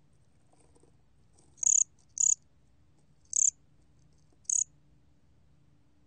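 A 곰귀뚜라미 cricket singing at 23 °C: four short, high-pitched chirps spaced unevenly about half a second to a second apart.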